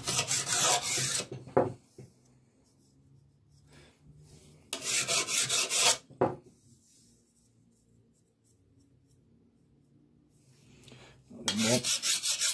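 Flat file rasping along the side of a steel chainsaw bar's rails in quick strokes, deburring the edges raised by rail filing. The filing comes in three bursts: in the first second, about five seconds in, and again near the end, with quiet between.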